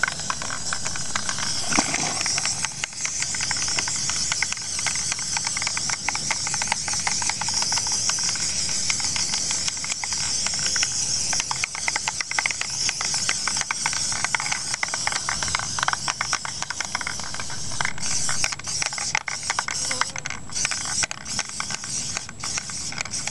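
Aerosol can of Majic tractor and implement spray enamel hissing steadily as paint is sprayed onto a tractor hood, with many small crackles through it. The hiss breaks up with short gaps in the last few seconds.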